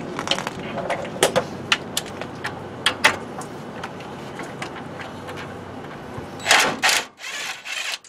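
Ratchet wrench with a 3/4-inch socket working the rusted nut off a steering tie rod end stud: scattered metallic clicks and scrapes, then two short, dense bursts of clicking near the end.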